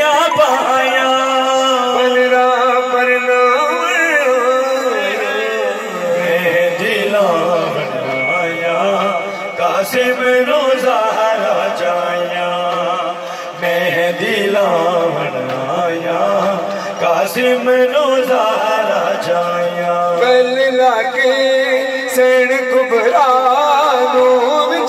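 A man singing a noha, a Shia lament, in a wavering, ornamented melody through a loud PA sound system, over a steady held tone.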